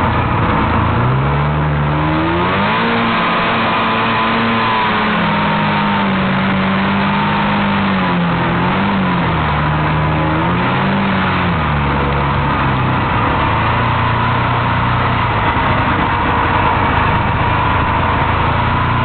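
Vintage Kawasaki Intruder snowmobile's two-stroke engine under way, revving up about a second in and holding a high note with a couple of short dips, then easing back to a lower steady note past the halfway point and climbing again near the end. A steady rushing noise runs underneath.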